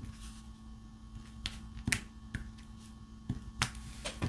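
Diamond painting drill pen pressing resin drills onto the sticky canvas: about six sharp, short taps at uneven intervals, over a faint steady hum.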